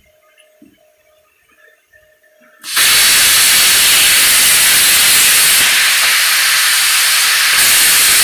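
Air plasma cutter torch on an ArcDroid CNC table starting up about two and a half seconds in, then a loud, steady hiss of the plasma arc and air jet as it cuts through sheet metal.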